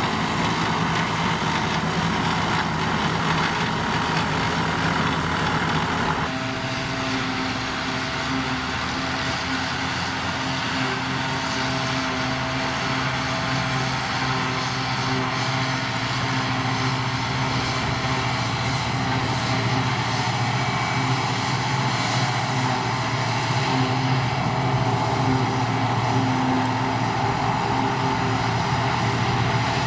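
A tractor engine runs under load, driving a Taarup trailed forage harvester that chops grass and blows it into a trailer. About six seconds in the sound changes abruptly to a John Deere self-propelled forage harvester's engine and chopper running steadily as it harvests grass, with its tractor and trailer running alongside.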